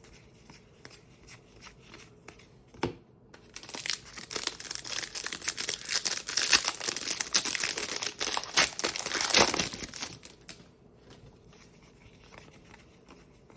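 Foil trading card pack torn open, its wrapper crinkling and crackling for about seven seconds, with light ticks of card handling before and after.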